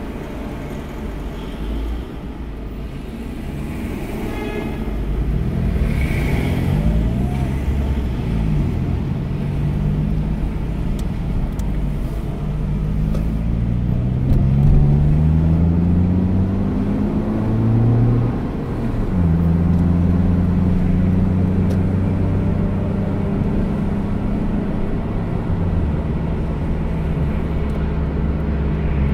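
Car engine and road noise, the engine note rising steadily as the car accelerates, dropping abruptly at a gear change about two-thirds of the way through, then holding steady at cruising speed.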